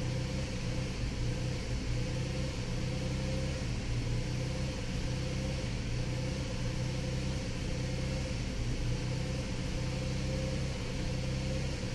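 The 3.6 L Pentastar V6 of a 2011 Volkswagen Routan idling with a steady low hum, heard from inside the cabin. The electronic throttle body is not responding to the pedal.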